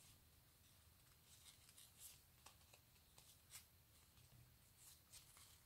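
Near silence, broken by a few faint, brief rustles of ribbon being drawn up on a sewing thread and gathered.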